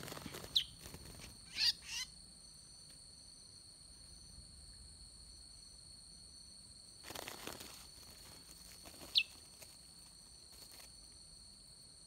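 Two short, sharp bird calls, each a quick downward-sliding note, about half a second in and again near the end. Between them come bursts of rustling and handling. A steady high-pitched drone runs underneath.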